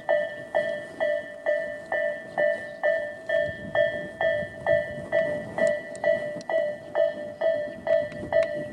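Japanese level-crossing electronic warning bell of the Tobu Railway type A, dinging steadily about twice a second, each ding a chord of several ringing tones. A low rumble rises under it in the middle.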